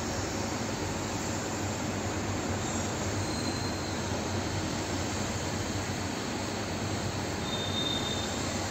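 Steady outdoor rushing noise with no distinct event, with two faint brief high tones, one about three seconds in and one near the end.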